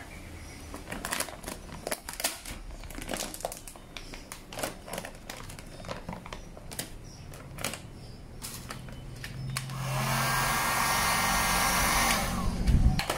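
Vinyl wrap film crinkling and crackling as it is pulled and smoothed by hand. About ten seconds in, a handheld heat gun starts blowing with a steady hiss and runs for about three seconds before it is switched off.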